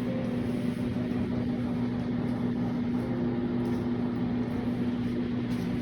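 A steady machine hum with a constant low tone, as from a running fan or motor.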